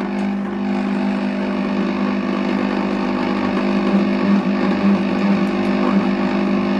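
Compact Cook Elite cooking robot's motor running with a steady hum, turning its blade through grated vegetables and water at the start of a cooking program.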